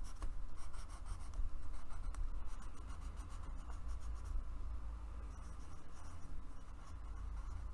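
Pencil scratching on paper in short, irregular strokes while drawing outlines, over a steady low hum.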